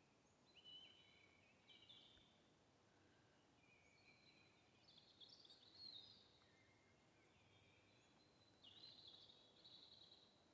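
Faint birdsong in the open air: short, rapid song phrases repeated every second or two, with quiet gaps between them.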